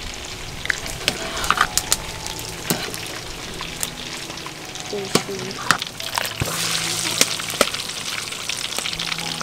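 A metal spoon stirring a thick mixture in an aluminium cooking pot, with scattered clinks and taps against the pot. About six seconds in, a louder steady hiss of cooking rises and the taps continue.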